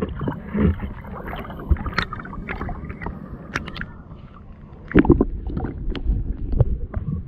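A hand digging into the sandy seabed for clams, heard underwater: muffled water churning with irregular knocks and scrapes of sand and shell, growing louder and busier about five seconds in.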